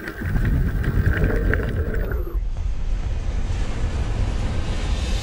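A loud, low rushing rumble like wind or surf, with a hiss that swells in the upper range in the second half.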